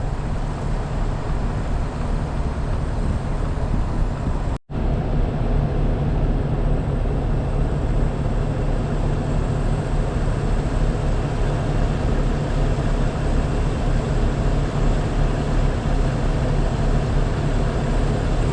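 Steady vehicle engine and road noise from a vehicle driving, heaviest in the low range, broken by a brief silent gap about four and a half seconds in.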